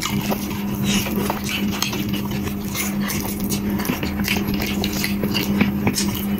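Close-up eating sounds: wet chewing and mouth clicks, many short irregular smacks, over a steady low hum.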